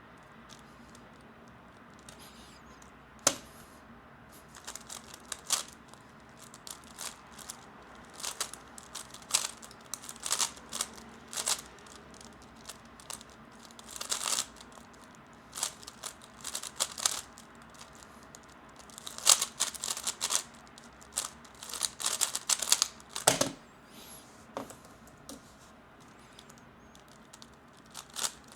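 3x3 Rubik's cube being turned fast: bursts of rapid plastic clicking and clacking with short pauses between them. A single sharp knock sounds about three seconds in, and a heavier knock about three-quarters of the way through.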